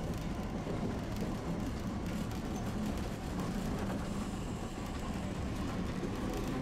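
Steady low rumble of a vehicle in motion, with no distinct knocks or signals standing out.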